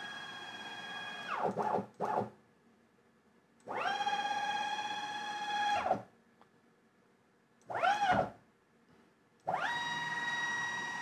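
Z-axis stepper motor and drive of a CNC-converted Grizzly G0704 milling machine whining through fast rapid moves of about 400 to 450 inches per minute. Each move is a pitched whine that glides up as it accelerates, holds steady and glides down as it stops: one ends about a second and a half in, a full move runs from about 4 to 6 seconds, a brief rise and fall comes near 8 seconds, and another starts about 9 and a half seconds in.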